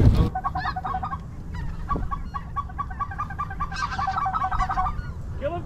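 Snow geese calling: a quick, even series of short, high goose calls, denser through the middle.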